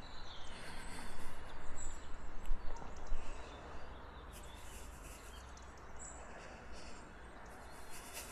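Outdoor ambience with a steady background hiss and a few faint, brief bird chirps. An uneven, louder noise fills roughly the first three seconds before the sound settles to a quieter background.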